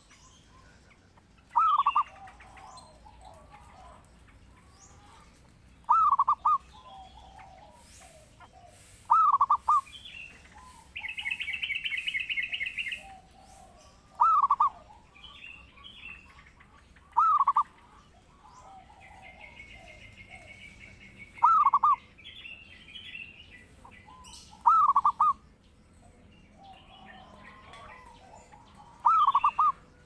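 Zebra dove (perkutut) singing its cooing song: a short burst of quick coo notes, repeated eight times about every three to four seconds. A higher, rapid rattling trill from another bird comes in near the middle, and a fainter one follows later, with faint chirps between.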